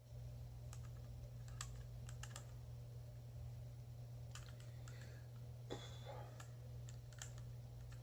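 Faint, irregular short clicks, about a dozen spread over several seconds with one longer rustling click near the middle, over a steady low electrical hum.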